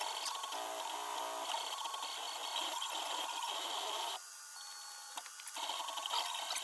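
MakerBot Replicator 2X 3D printer's stepper motors whirring and chirping as the print head moves back and forth laying down plastic. The sound quietens for about a second and a half near the middle, then resumes.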